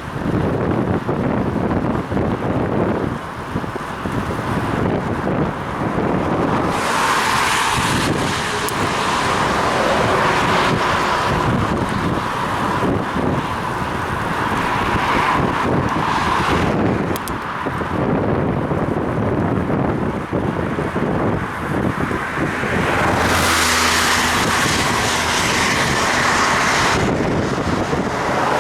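Wind buffeting the microphone of a head-mounted action camera on a moving bicycle, with the hiss of tyres on a wet road and car traffic going by. Two long stretches of louder hiss come in, and for a few seconds near the end a vehicle engine hums steadily close by.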